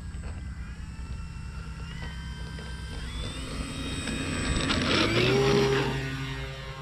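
Electric motor and propeller of a 2000 mm foam RC Cessna 182 throttling up for a takeoff roll: a whine that rises in pitch about three seconds in and is loudest as the plane passes about five seconds in, then eases back slightly near the end.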